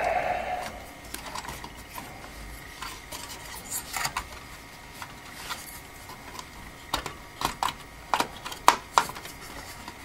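Light clicks and taps of hands working memory modules and the plastic retention latches of the RAM slots on an HP ProDesk 600 G1 SFF motherboard. The clicks are scattered and come thicker and sharper in the last few seconds.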